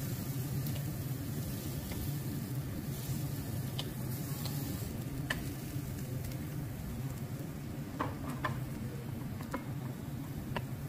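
Metal spatula mashing and stirring spiced boiled potato in a stainless steel frying pan over a steady sizzle of frying, with a scattering of sharp clicks and scrapes as the spatula hits the pan.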